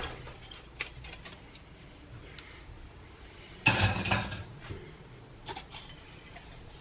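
Mixing bowls and kitchen utensils handled on a counter: a few light knocks and one louder clatter lasting about half a second, nearly four seconds in.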